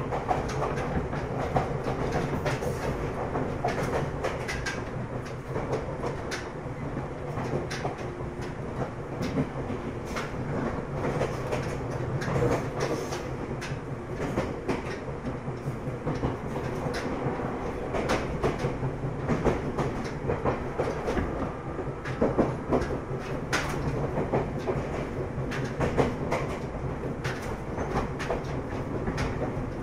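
Ryutetsu 5000-series electric train (car Kumoha 5001, a former Seibu 101-series unit) running along the line: a steady motor and gear hum, with the wheels clicking over rail joints now and then.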